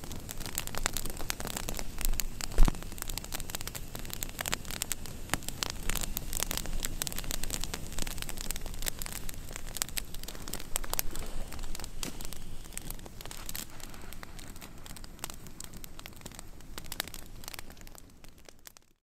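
Wood campfire crackling, with many sharp pops and snaps over a steady hiss, and a single louder thump about two and a half seconds in. It fades out near the end.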